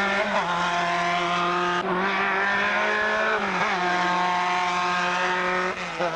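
Formula 3 racing car's four-cylinder engine running hard at high revs, a steady note that dips briefly about four times as the gears are changed.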